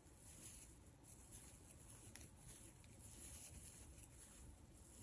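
Near silence, with a few faint soft rustles from a crochet hook working yarn.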